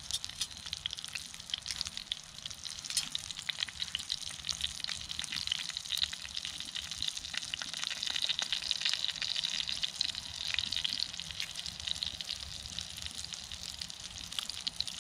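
Steak sizzling in a cast-iron skillet over a wood fire: a steady hiss full of small, rapid pops and crackles.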